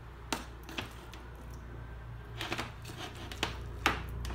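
A handful of short, sharp clicks and light knocks from handling the non-stick wok, its spoon and the glass-top hob, strongest near the end, over a low steady hum.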